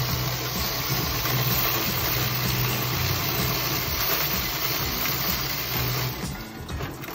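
Coin-counting machine running, with a steady motor hum under the dense rattle of coins pouring through it as the tray empties. The rattle dies down about six seconds in.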